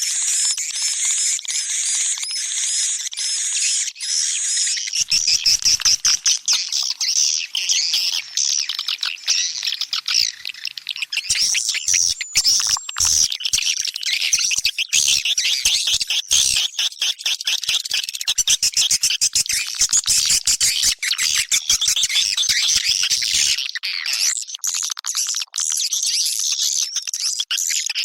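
Swiftlet lure call: a dense, continuous mass of high swiftlet twitters and chirps, opening with a regular run of short arched chirps, then joined by rapid sharp clicks from about five seconds in until a few seconds before the end. It is the kind of 'calling sound' recording played at a swiftlet nest house to draw the birds in.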